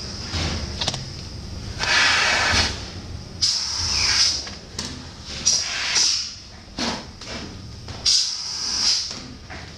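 Compressed air hissing in repeated bursts, each about a second long, as nitrile exam gloves are blown up like balloons for a leak test.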